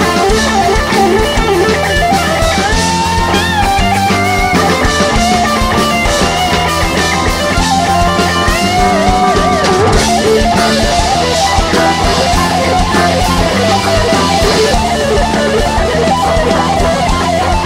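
Live rock band playing an instrumental passage: an electric guitar leads with bending, wavering notes over drums and bass guitar.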